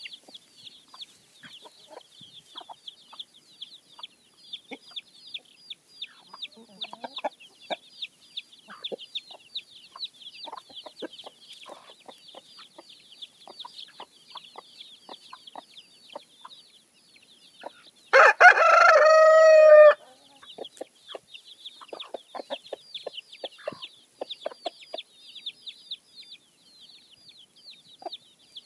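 Chicks peeping rapidly and without a break, with short clucks from the hens among them. About two-thirds of the way in, a rooster crows once, loudly, for about two seconds.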